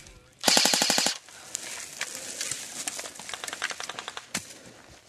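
Airsoft AK-style rifle firing one short full-auto burst, a rapid even rattle of about half a second, starting about half a second in. Scattered fainter single shots and clicks follow, with a brief quicker run of them near the end.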